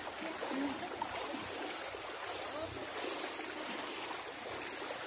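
Water washing and rushing steadily along the hull of a small outrigger boat moving through shallow water.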